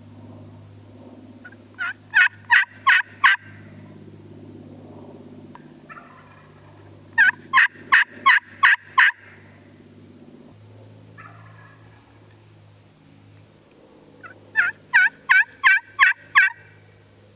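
Wild turkey yelping: three loud series of five or six evenly spaced notes, each note breaking from high to low. After the first two series, a fainter, farther turkey call answers. A steady low hum runs underneath.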